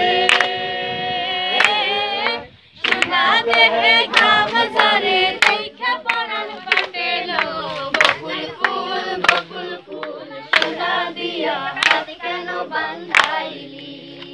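A group of young men and women singing together without instruments, clapping along on the beat about once every second and a half. The singing breaks off briefly about two and a half seconds in.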